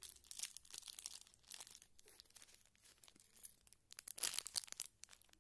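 Thin clear plastic sleeve around a makeup brush crinkling and rustling as it is handled, in quick irregular crackles, loudest about four seconds in.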